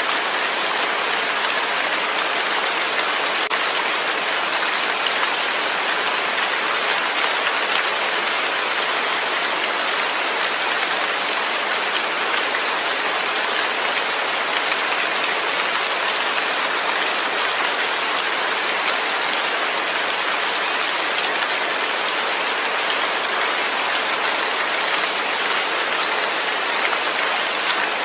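Steady rain with no thunder: an even hiss of falling rain, dotted with faint drop ticks.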